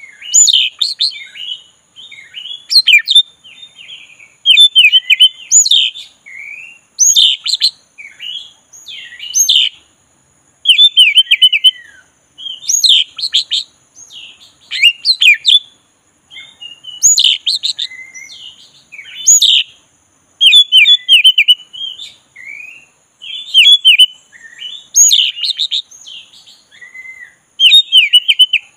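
Black-breasted Oriental magpie-robin singing loudly in continuous, varied whistled phrases. Each phrase lasts about a second and follows the last after a short pause, the long rolling song that keepers call gacor.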